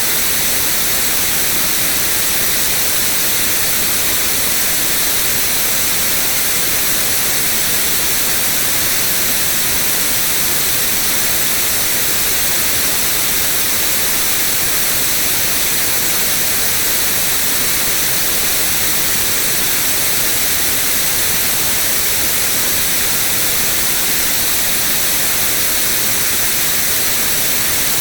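Steady white noise: a constant, even hiss across the whole range, brightest in the treble, with no change or events.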